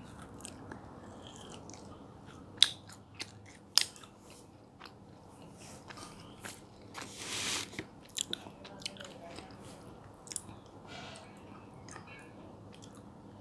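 Close-miked mouth sounds of biting and chewing soft mango jelly, full of sharp wet clicks and smacks. The loudest come about two and a half and four seconds in, with a longer noisy stretch about seven seconds in.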